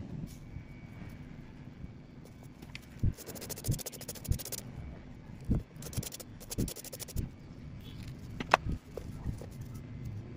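Handling noise as small fishing-lure parts are picked up and worked by hand on a tabletop: a scatter of soft knocks and taps, with two short stretches of scratchy rustling, over a low steady background hum.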